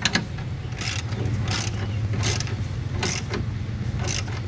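Hand socket ratchet tightening a tailgate hinge bolt: a short burst of pawl clicks on each back-swing, six strokes about 0.7 s apart, over a steady low hum.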